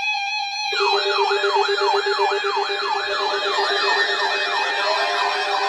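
Weather-radio alert siren starting about a second in: a falling electronic sweep repeated about three times a second over a steady lower tone. It is the alarm for a newly issued severe thunderstorm watch.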